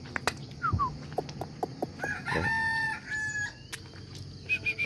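A rooster crows once, a long call of about a second and a half beginning about two seconds in, with a few short bird chirps and small clicks around it.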